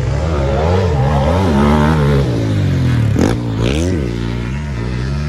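Off-road racing engines on a motocross track, revving up and dropping again and again as the machines accelerate and shift. A loud close pass comes about three seconds in, the pitch dipping and then climbing sharply.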